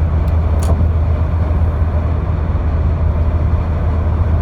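Steady low rumble with a constant deep hum, with one faint click under a second in.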